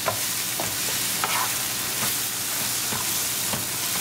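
Sliced ivy gourd (tindora) sizzling in oil and spices in a nonstick pan while a spatula stirs it. The spatula scrapes across the pan in about six short strokes over the steady sizzle.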